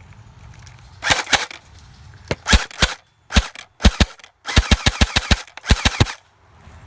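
Airsoft guns firing: single shots and short bursts of sharp cracks, with a rapid run of about eight shots a second around the middle.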